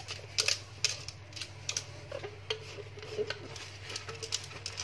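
Dishes being hand-washed in a metal sink of soapy water: irregular sharp clicks and knocks of a cup and utensils against each other and the basin while a cup is scrubbed with a sponge.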